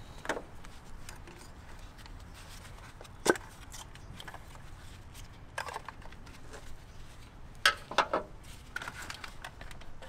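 A few sharp plastic clicks and knocks from a BMW N52 ignition coil being handled: its connector unclipped and the coil pulled from the engine by gloved hands. The loudest click comes about three seconds in, with two more close together near the end.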